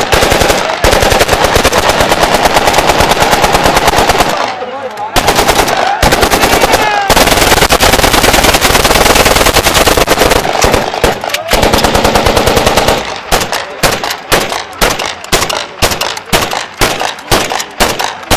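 Celebratory gunfire: long rapid bursts of automatic fire, broken by a short pause about four and a half seconds in. From about thirteen seconds in it turns to shorter bursts and single shots with gaps between them.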